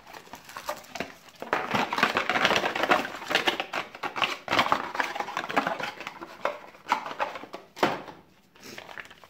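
A phone's cardboard retail box and its paper and plastic packing being rummaged through by hand: dense, irregular crinkling and rustling with small knocks, busiest in the middle and dying away near the end.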